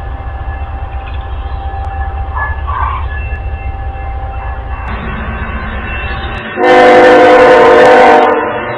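A train running with a steady low rumble, then a single loud locomotive horn blast lasting about a second and a half, starting about six and a half seconds in.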